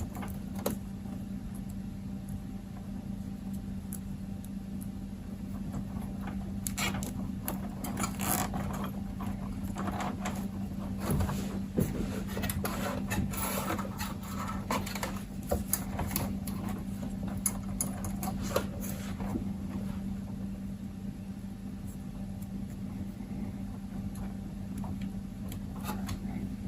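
Plastic cable ties being fastened around wires and bus bars: scattered ratcheting clicks and rustling of handled cable, over a steady low hum.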